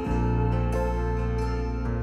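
Slow instrumental background music: sustained chords over a steady low bass note, the chord changing near the end.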